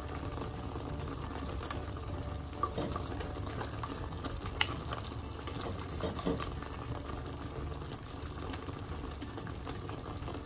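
Fish and vegetables simmering in a pan with a steady bubbling hiss, while a spatula is stirred through them, scraping and tapping against the pan a few times.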